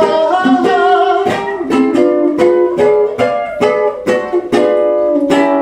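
Live music between sung lines: an acoustic string instrument, ukulele-like, strummed in a steady rhythm. A wavering sung note trails off in about the first second.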